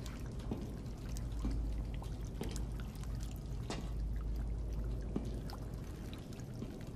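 Water dripping and trickling into a dark puddle: scattered separate drips over a low, steady drone.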